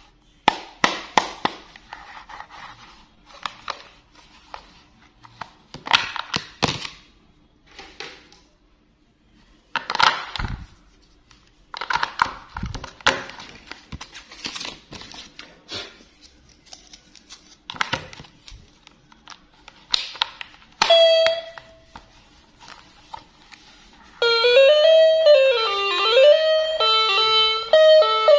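Plastic clicks and knocks as a Thomas the Tank Engine toy piano train and its battery compartment are handled. A short electronic beep comes about two-thirds in. Near the end the toy's speaker starts playing an electronic tune.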